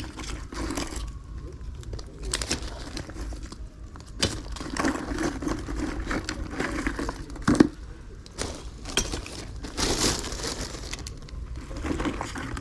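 Rustling and crinkling with repeated sharp knocks as scrap-metal finds such as scaffold clamps are handled and sorted into bags, the loudest knock about seven and a half seconds in.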